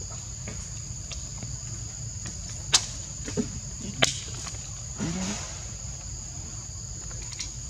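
Steady high-pitched chorus of forest insects with a low rumble underneath. Two sharp clicks stand out about three and four seconds in, followed by a short low wavering sound about five seconds in.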